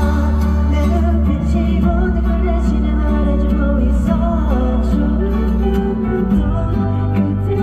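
Pop music with guitar, a steady bass line and singing.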